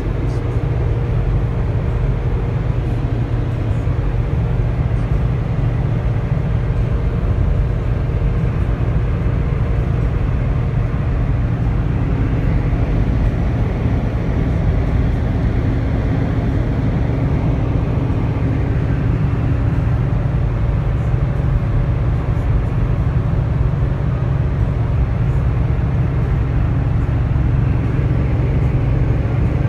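Truck cab interior while driving: a steady low drone of engine and tyre noise with a faint hum above it.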